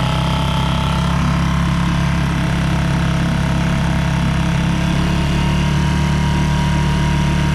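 Small 3.5 hp outboard motor running steadily at high throttle, pushing a light inflatable boat on plane, with water hissing along the hull.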